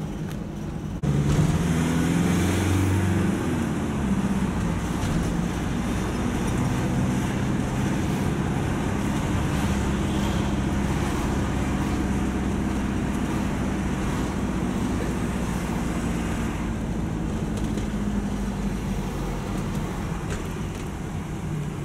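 Engine and road noise of a moving vehicle, heard from inside the cabin. About a second in the sound gets suddenly louder and the engine pitch climbs as it accelerates, then it settles into a steady drive.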